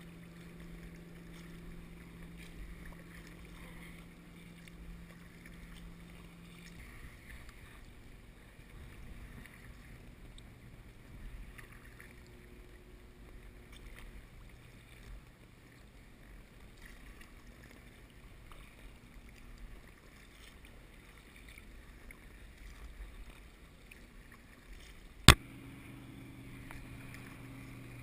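Quiet ambience on the water from an inflatable kayak: a faint low rumble of wind and water with a steady low hum from boat engines that shifts pitch a couple of times. About 25 seconds in, one sharp, loud click.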